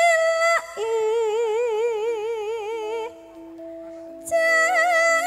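Campursari music: a lead melody holding long notes with a regular wavering vibrato. About three seconds in it drops away, leaving quieter held notes stepping downward, and then the lead returns loudly just before the end.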